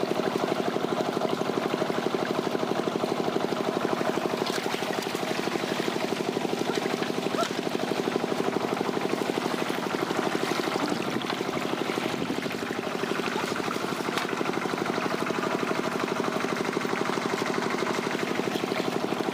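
A small engine running steadily at a constant speed, with a fast, even chugging.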